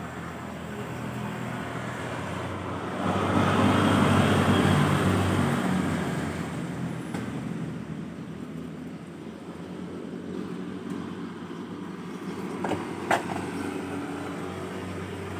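A motor vehicle engine running steadily, swelling louder for a few seconds about three seconds in, with a sharp click near the end.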